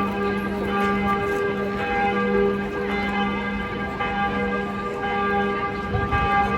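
Several bells of Notre-Dame de Paris ringing together in a peal, their tones overlapping and ringing on without a break, the deepest bell sounding under the higher ones.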